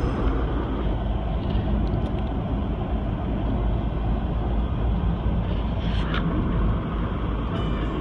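Steady road and engine noise inside a moving car's cabin, a low even rumble with no sudden events.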